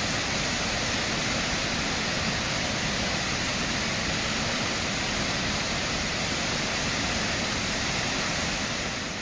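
Sahalie Falls, a 100-foot waterfall, plunging over a lava dam: a steady rush of falling water. It fades out near the end.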